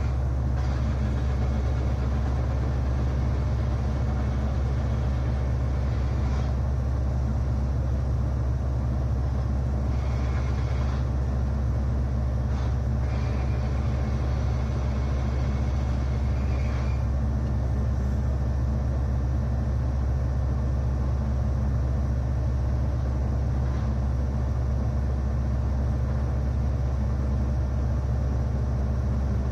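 Caterpillar 375L excavator's diesel engine idling steadily, heard from inside the cab as a constant low rumble. A faint hiss comes and goes a few times.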